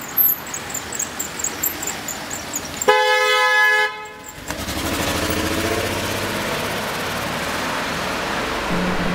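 A car horn honks once for about a second. Then a car's engine and tyres run steadily as it pulls away. Before the horn there is a run of light, irregular taps.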